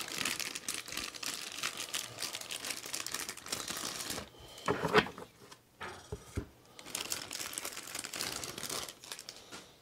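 Plastic zip-lock bag crinkling as a handful of trading cards is pulled out of it, in two spells of rustling with a brief louder bump about halfway through.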